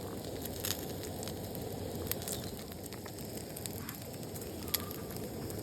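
Wood fire burning with a steady rushing crackle and scattered sharp pops, one louder pop near the end.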